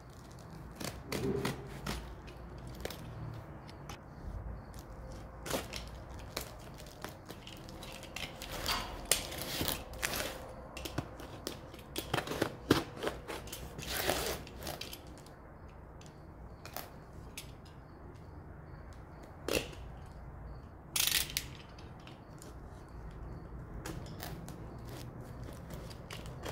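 A parcel being opened by hand: irregular crackles, rips and clicks of cardboard, tape and packing material, busiest in the middle of the stretch and with one loud burst near the end.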